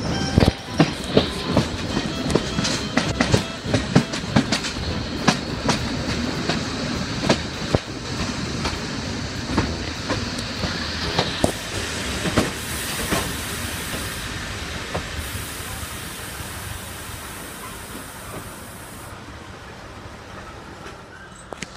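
Train wheels clattering over rail joints and points as the train slows to arrive at a station. The clicks come thick at first and then thin out while the running noise fades. A high hiss comes in midway for several seconds.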